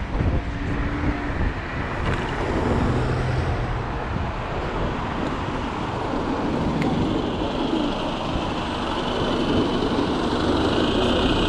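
Continuous rumbling wind and road noise from riding an electric unicycle. A faint steady high whine comes in around halfway and grows a little toward the end.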